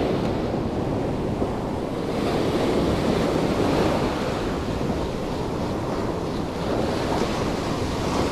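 Surf from a rough, choppy sea breaking and washing up a sandy beach in steady swells, with wind buffeting the microphone.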